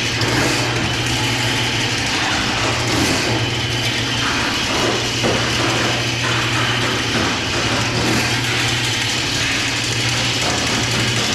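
Motorized drain-cleaning machine running steadily, its cable turning in a backed-up floor drain line to clear a clog of wipes and paper; a constant motor hum under a dense mechanical clatter.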